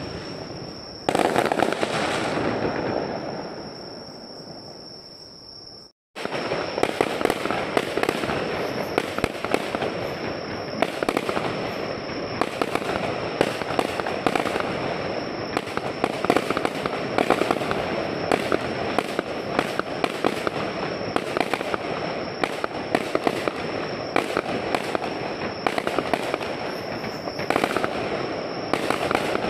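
Fireworks display: a loud shell burst about a second in that fades away, then, after the sound cuts out briefly, continuous dense crackling and popping of exploding shells.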